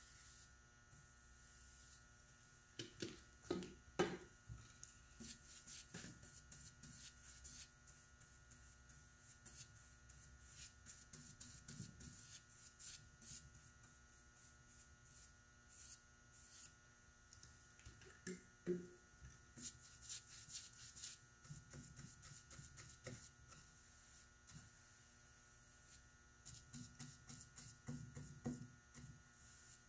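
Faint swishing of a paintbrush's bristles drawn in repeated short strokes over a wooden cabinet door as polyurethane is brushed on, with a few light knocks, the loudest about 4 seconds in, over a steady low hum.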